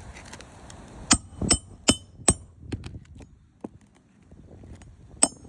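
Hammer strikes on a shingle roof: four sharp, ringing metallic blows in quick succession, a few lighter taps after them, and one more blow near the end.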